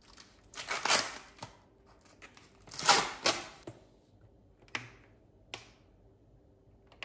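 Kitchen handling noises: two loud bursts of plastic rustling as raw chicken is moved from its plastic tray into a plastic mixing bowl, then a few light clicks as a large plastic bottle of cooking oil is handled over the bowl.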